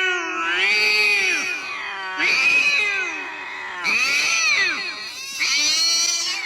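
Domestic cat meowing: about four long, drawn-out calls in a row, each rising and then falling in pitch.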